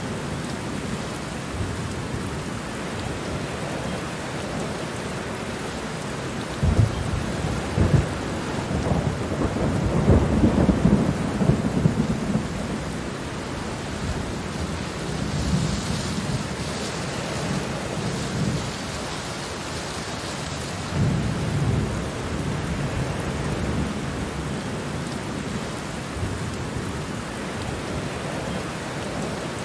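Steady rain falling, with low rumbles of thunder: a long roll from about seven to twelve seconds in and a shorter one a little after twenty seconds.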